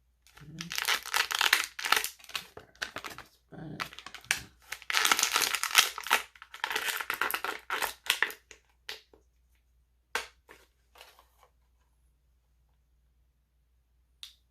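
Plastic and cardboard action-figure packaging being handled and pulled open, crinkling and crackling in bursts for about eight seconds, then a few sharp clicks.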